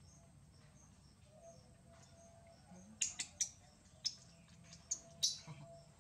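Sharp, crisp cracks and snaps of food being broken apart by hand, about six in quick succession in the second half, over faint bird chirps.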